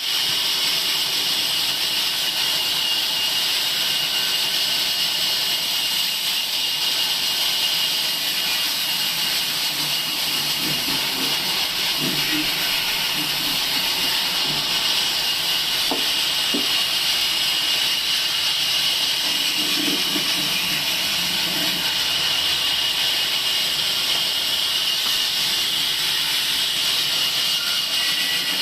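Table sawmill running steadily, a high hiss with a faint steady whine above it, and a few light knocks of wood near the middle.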